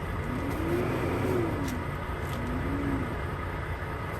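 Steady low rumble of an idling engine, with a faint tone that rises and falls once and then again more briefly.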